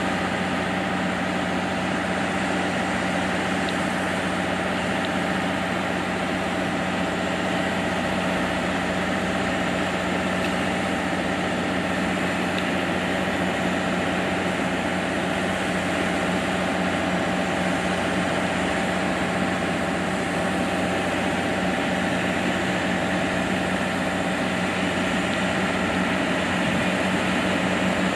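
Train engine idling at a station: a steady, unchanging hum that holds the same pitch throughout.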